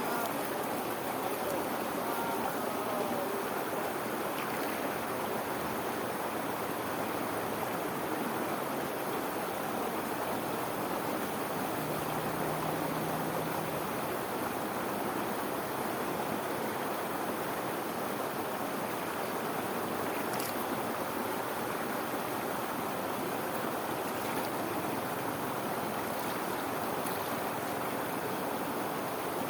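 Fast irrigation-channel water pouring over a small waterfall into a whirlpool, a steady, unbroken rush.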